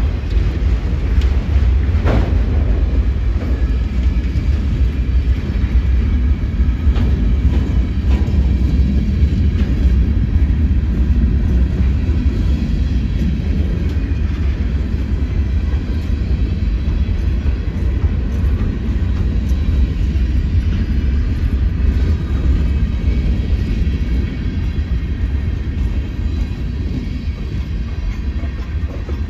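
Freight train cars (autoracks, covered hoppers, a tank car) rolling past at close range: a steady, loud rumble of steel wheels on rail, with a sharp click about two seconds in.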